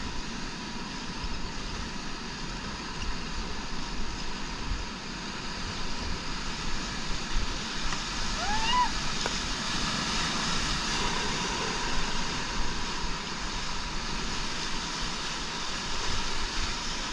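Whitewater of the Salmon River rushing steadily around a paddle raft as it runs a rapid. About nine seconds in there is a brief shout from a rafter.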